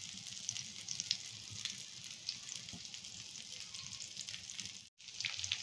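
Egg-dipped chicken and potato cutlets shallow-frying in oil on medium heat: a steady sizzle with scattered small crackles. The sound drops out for a moment near the end.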